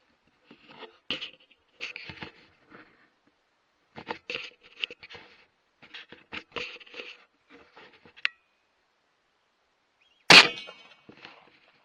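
A single rifle shot about ten seconds in, sharp and loud with a short trailing echo, followed by a fainter crack. Before it comes a run of short, irregular, faint noises.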